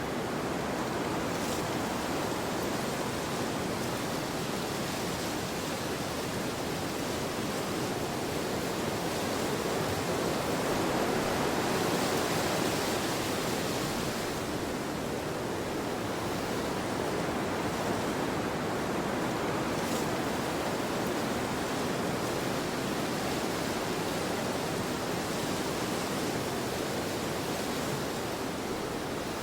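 Wind blowing steadily through a snowy landscape, a continuous soft rush that swells for a few seconds about halfway through before settling back.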